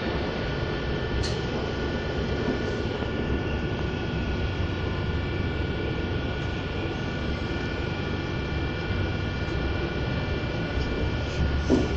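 Diesel regional train running, heard from inside the passenger car: a steady low rumble of engine and wheels on rail with a steady high whine over it. A short louder knock comes near the end.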